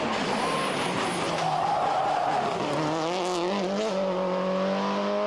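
Rally car at full speed: the engine is running hard under a thick wash of tyre and road noise, its revs wavering and climbing a few seconds in, then held steady until the sound cuts off abruptly.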